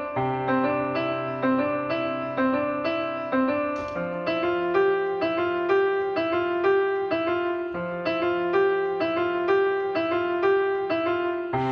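Background piano music: a gentle, evenly paced melody of repeated notes, about two a second, over held bass notes.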